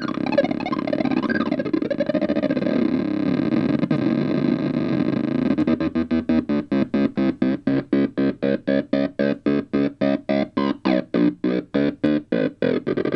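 Homemade light-controlled phototheremin oscillators making a buzzy electronic tone with a few pitch glides at first. About six seconds in, the tone turns into rapid, even pulsing, about four or five pulses a second.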